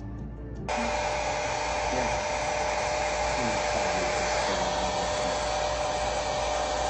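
Hand-held hair dryer blowing steadily with a constant motor hum, switching on abruptly under a second in and running on without change.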